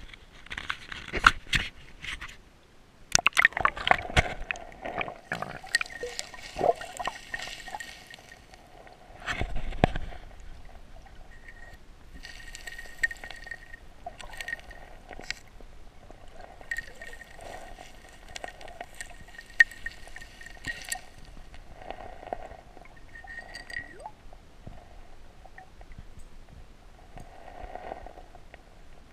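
Water splashing and gurgling as the microphone goes under the surface of a shallow river, with a burst of sharp clicks and knocks in the first few seconds. Then muffled underwater noise with scattered taps and scrapes as a hand digs through the gravel and silt of the riverbed.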